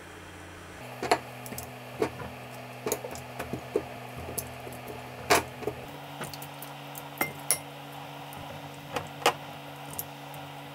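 Kitchen tongs clicking and clinking against a plate and a glass bowl as pieces of chicken and potato are lifted out and set down: a string of sharp, irregular clicks over a steady low hum.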